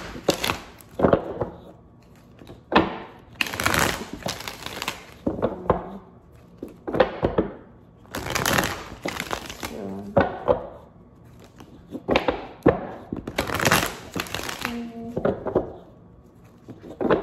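A deck of tarot cards being shuffled by hand, in repeated short bursts of card-on-card rustling with brief pauses between.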